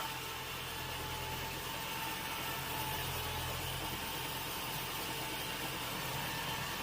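Sawmill machinery running steadily with a low, even hum and no cutting strokes or changes in pitch.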